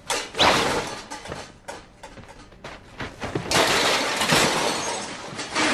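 Tableware clattering as a tablecloth is yanked from a laden table, then a longer, louder crash and clatter a few seconds later as the objects are swept off the table onto the floor.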